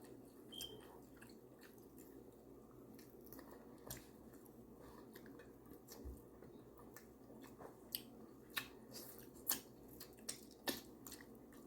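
Faint chewing of food, with scattered short, sharp clicks that come more often in the second half, over a low steady hum.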